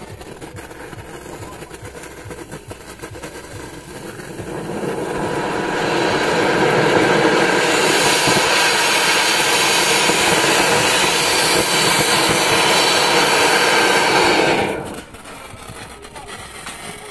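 Two anar flowerpot fountain fireworks burning and hissing as they spray sparks. The hiss builds over a couple of seconds, runs loud and steady for about eight seconds, then cuts off suddenly near the end.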